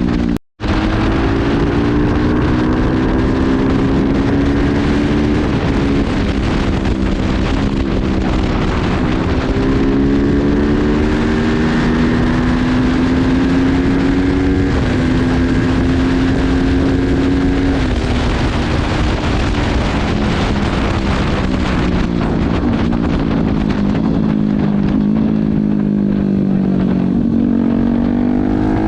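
Custom-built 275cc motorcycle with a handmade exhaust, ridden under throttle. The engine note climbs through the revs and drops back at each gear change, holds steady for a few seconds mid-way, then eases off slowly before picking up again near the end. The sound cuts out for a moment just after the start.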